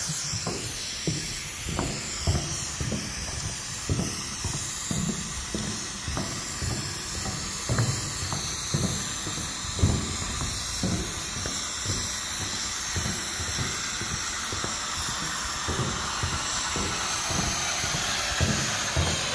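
Steady hiss of steam escaping from a geothermal vent, with irregular low thuds throughout.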